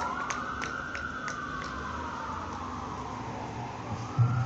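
Emergency vehicle siren wailing: a slow rise over the first second, a long fall over the next two or three, then a rise again near the end. A few sharp clicks sound in the first two seconds, and a short low thump comes near the end.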